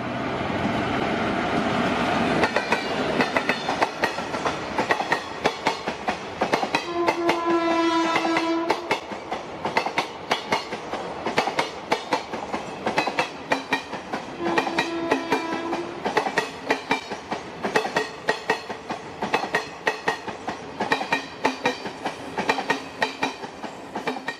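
Train running past with a steady, rapid clatter of wheels over the rail joints, and two horn blasts, the first about 7 seconds in and the second about 15 seconds in.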